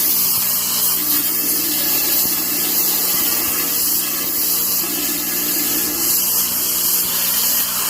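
Power tool cutting metal, running steadily with a constant hum and hiss.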